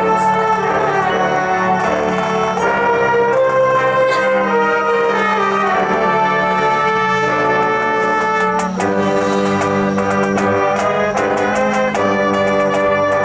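A high school marching band playing: the brass section holds chords and a melody over a sustained low brass note, with percussion strikes joining in during the second half.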